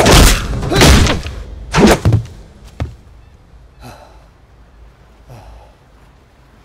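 Heavy thuds and slams of blows landing in a film fight, three in quick succession over the first two seconds, followed by two faint, gasping breaths.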